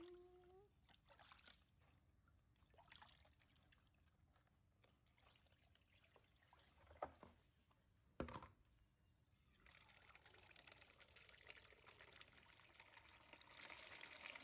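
Faint trickling water that sets in about ten seconds in and runs on, after a brief squeak at the start and two soft knocks.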